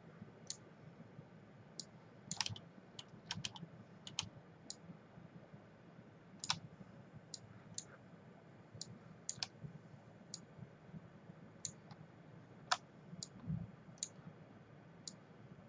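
Irregular, faint clicks of a computer mouse and keyboard, single or in quick pairs, over a low steady hum.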